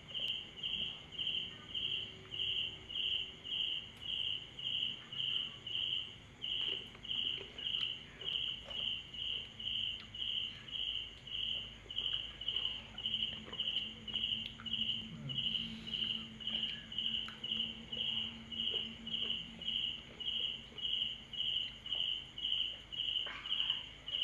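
Insect chirping, high-pitched and evenly repeated at about two chirps a second.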